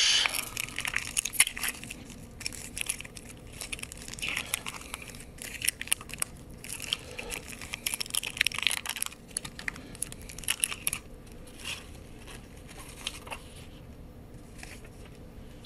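Foil trading-card booster pack wrapper crinkling and tearing as it is opened and the cards are slid out. Dense crackling that thins out after about eleven seconds.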